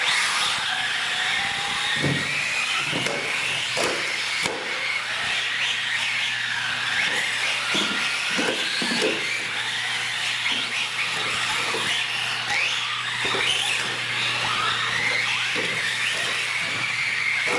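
Several radio-controlled UTV trucks racing, their electric motors whining and rising and falling in pitch as they speed up and slow down. Scattered knocks and thumps of landings and bumps come through, most of them early on and again a little past the middle.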